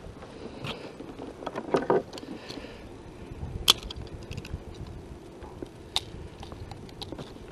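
Handling noise of a fishing lure, landing net and pliers as a lure is worked free of the net's mesh: small clicks and rattles, with a burst of rattling about two seconds in and sharp single clicks near four and six seconds in.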